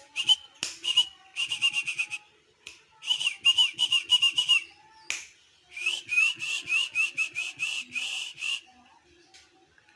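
A pet songbird chirping in rapid series of sharp, whistled notes, coming in several bursts of one to three seconds each.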